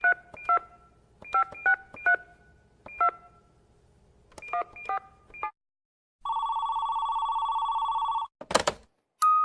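Touch-tone telephone keypad dialing a number: about a dozen short two-tone beeps in quick clusters, then a steady ringing tone for about two seconds, and a single clunk near the end.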